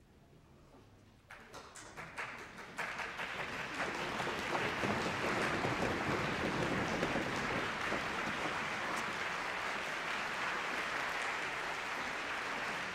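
Audience applauding in a theatre: a few scattered claps about a second in, swelling within a couple of seconds into full, steady applause.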